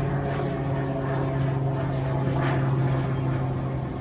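Light propeller airplane flying over, its engine giving a steady drone.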